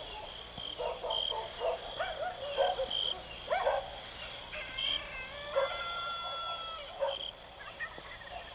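Short animal calls, yelps or squeals, several in a row, with one longer held call about halfway through, over a steady high-pitched tone.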